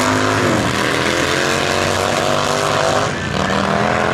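Vintage Harley-Davidson V-twin motorcycle engines at full throttle on a drag-strip run, their pitch climbing as they accelerate. The pitch drops at gear changes about half a second in and again about three seconds in, then climbs again.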